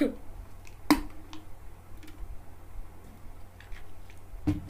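Small clicks and mouth sounds from a woman taking a drink from a plastic water bottle: a short sharp burst about a second in, a few faint clicks, and another short burst near the end.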